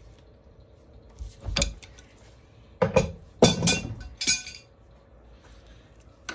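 About four sharp metal clinks and clanks: steel tools and displacement-pump parts knocked and set down on a workbench, the loudest about halfway through.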